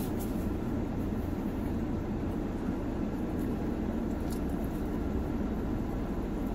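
Steady low hum of a parked car's idling engine and air-conditioning blower, heard inside the cabin.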